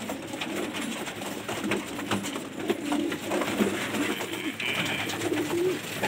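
Gola pigeons cooing in a small loft, several overlapping low coos with scattered light clicks. A brief higher steady note sounds about five seconds in.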